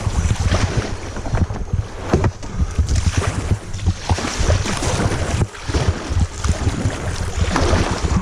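Wind buffeting the microphone in uneven gusts, over the sound of moving river water.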